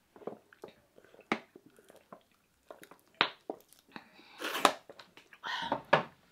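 Close-up mouth sounds of eating fried tilapia by hand: chewing and lip smacks with scattered soft clicks. Two louder noisy bursts come about four and a half and six seconds in.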